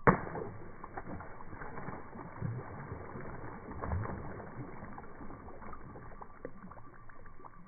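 A hooked fish thrashing and splashing at the surface of the pond: one loud splash at the very start, then repeated irregular splashing and sloshing of water.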